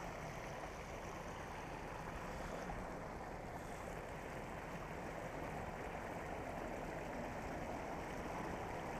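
Water spilling over a small concrete weir into a pool: a steady, even rush of falling water.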